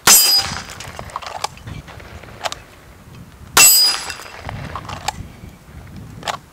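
Two handgun shots about three and a half seconds apart, each sharp and loud with a brief ring after it. Several much fainter sharp cracks come in between.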